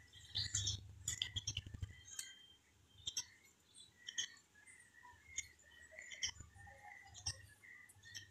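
Silicone spatula stirring a thin orange-juice mixture heating in a pan, with scattered light clicks and short squeaks as it scrapes and taps the pan.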